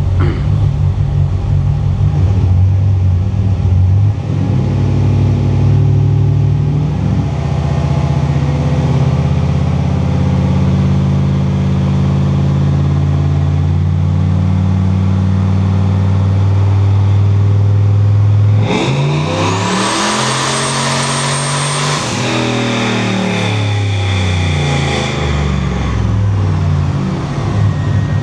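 Turbocharged 5.3L Vortec V8 running steadily in gear on a chassis dyno, then about two-thirds of the way in going to full throttle: the revs climb fast under load with a high turbo whistle on top for about three seconds. The pull is cut off at about 5700 rpm and the revs fall back to idle.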